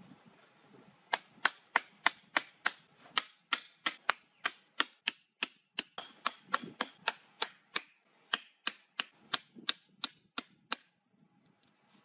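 Sharp, regular knocks, about three a second, as thin wooden stakes are driven into the ground to mark out the plot. They stop just before the end.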